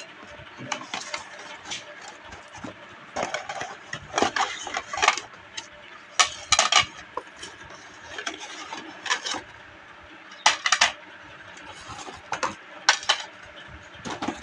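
Dinner-set bowls and plates clinking and knocking against each other as they are taken out of a cardboard box and set down: a scattered series of sharp clacks, several in quick pairs.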